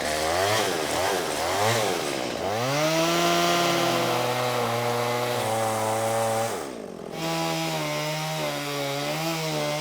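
Gas chainsaw engine blipped twice, then revved up and held at high speed. It drops back briefly about two-thirds of the way through, then revs up again with a slightly wavering pitch.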